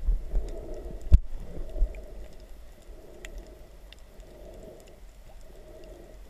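Muffled underwater sound of water moving around the camera: a low rumble that swells and fades, a sharp knock about a second in, and faint scattered ticks.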